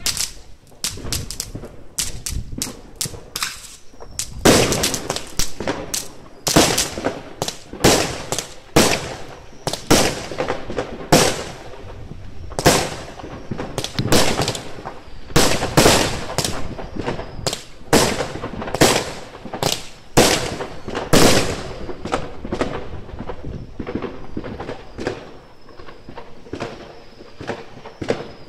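Aerial fireworks bursting: a rapid string of sharp bangs, about one to two a second, densest and loudest from about four seconds in until past twenty seconds, then sparser and fainter near the end.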